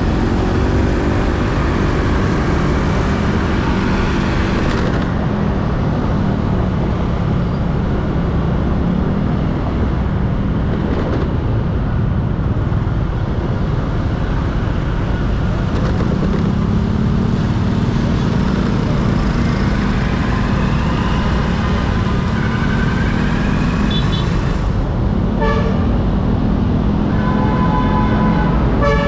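Riding a motorbike through heavy city traffic: a steady engine hum under a constant rush of wind and road noise. Several horns toot in the last few seconds.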